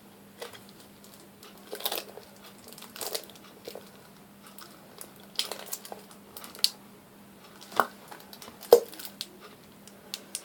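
Plastic glue bottle being squeezed and handled over a bowl: about eight short, scattered crinkles and clicks, spaced irregularly, as the last of the glue is poured out.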